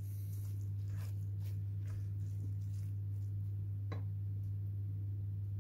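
A steady low hum, with a few faint scrapes and taps of a wooden spoon stirring spinach in a stainless steel pot; the clearest tap comes about four seconds in.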